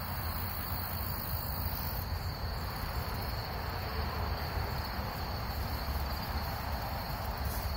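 Crickets trilling in a steady, unbroken high-pitched chorus, over a low steady rumble.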